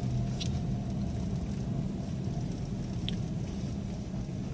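Car moving off with a steady low rumble and two brief high-pitched squeaks, about half a second in and about three seconds in. It is the noise a car can make when first driven after sitting parked, which can be caused by dirty rear drum brake shoes.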